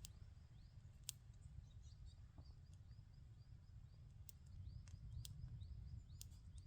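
Faint bird chirping: short high chirps repeated about twice a second, with a few sharp clicks over a low steady rumble.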